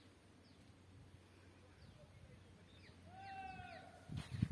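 Faint outdoor ambience with a few short bird chirps. About three seconds in comes a longer bird call with several overtones, and near the end there are low thumps on the microphone.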